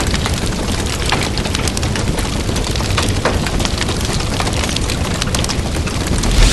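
Campfire of wet firewood burning, with dense crackling and popping over a steady low rumble, and a louder low thump near the end.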